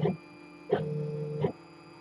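3D printer stepper motors whining through short moves while printing the brim. A steady tone starts and stops abruptly, sounding for under a second at a time with brief pauses between, and a click at each start and stop.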